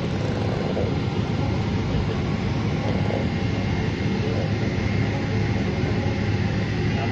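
Jet airliner cabin noise while taxiing on the ground: the engines at idle make a steady rumble with a constant low hum.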